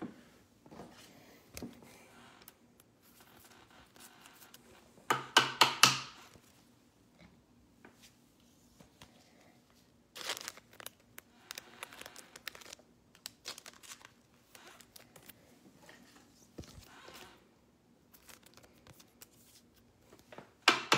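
Foil trading-card pack wrappers and plastic card holders being handled: crinkling and rustling with scattered clicks and taps. There is a louder crinkling burst about five seconds in and another around ten seconds.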